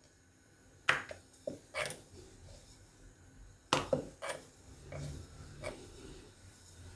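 Wooden rolling pin rolling out thin flour dough on a round wooden board: a soft low rubbing, broken by a few sharp wooden knocks and taps of the pin on the board.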